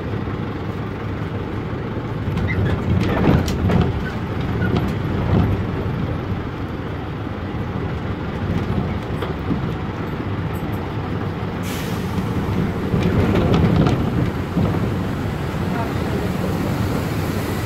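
Otokar M-2000 minibus's air-cooled Deutz F4L912 diesel engine running under way, heard from inside the cabin, with road noise; the sound swells twice, and a steady high hiss comes in about two-thirds of the way through.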